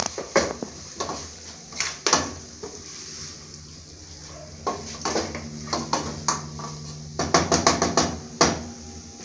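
Wooden spoon stirring beef fry in a stainless steel pot, knocking and scraping against the pot's sides: scattered knocks, then a quick run of knocks near the end.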